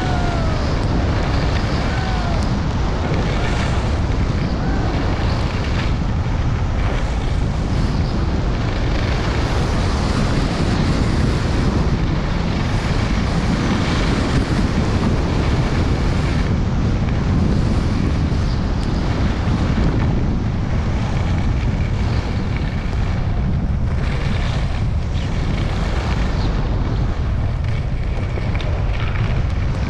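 Steady wind buffeting a GoPro Hero 8 Black's microphone on a downhill ski run, mixed with the hiss of skis sliding over groomed snow.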